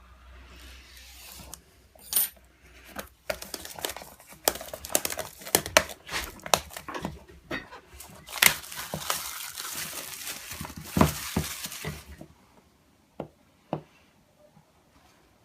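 Apple Watch packaging being handled and unwrapped: a dense run of rustling with many small clicks and taps from about two seconds in, thinning out near twelve seconds to a few light taps.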